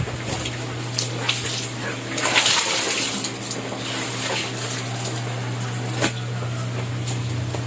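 Water splashing and sloshing on a flooded indoor floor, with a denser burst of splashing a little over two seconds in, over a steady low hum.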